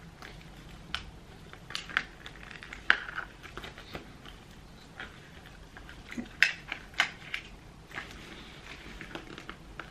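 Handling noise from a clear plastic waterproof phone pouch as a lanyard cord is threaded onto it: soft plastic rustling with irregular sharp little clicks and ticks, the sharpest about three seconds in and again around six and a half to seven seconds in.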